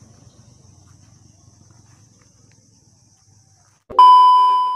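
Faint low background noise, then about four seconds in a sudden loud, steady electronic beep: the test tone of a TV colour-bars glitch transition, fading slightly as it goes.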